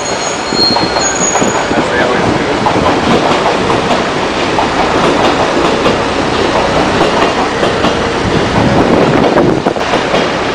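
Electric commuter train passing close by, its wheels running on the rails in a loud, steady rush of noise.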